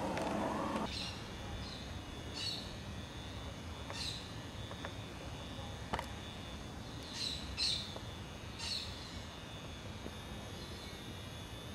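Birds chirping: short high calls at irregular gaps of one to three seconds, with a few faint clicks. A louder, lower noisy sound cuts off just under a second in.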